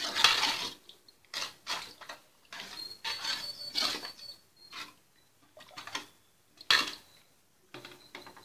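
Ladle stirring watery curry gravy in a metal pan: irregular scrapes and knocks of the ladle against the pan, with one sharper knock about two-thirds of the way through.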